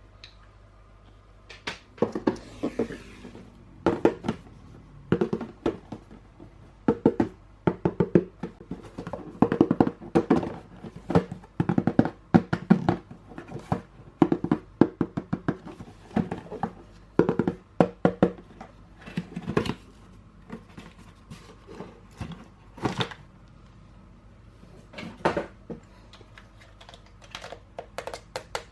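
Irregular clicks, taps and knocks of hard plastic toy parts and packaging being handled, busiest in the middle and thinning out near the end.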